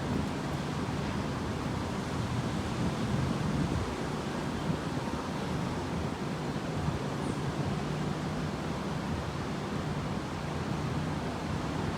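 Wind blowing across the microphone: a steady rushing noise with a low rumble, as a rainstorm comes in.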